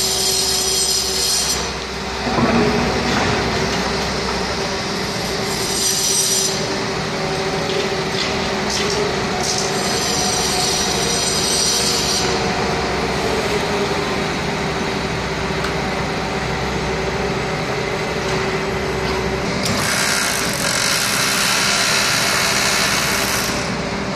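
Heavy construction machinery working in a deep excavation pit: a steady engine drone with a held tone, overlaid by high metallic squeals that come and go, loudest near the start and again near the end.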